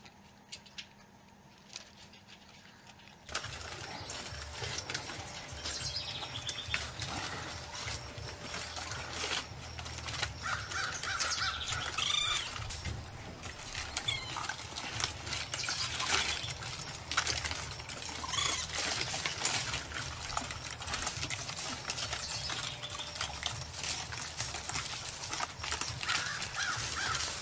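Repeated short animal calls that rise and fall, scattered over a steady low background noise. They start suddenly about three seconds in, after a nearly quiet stretch with a few small clicks.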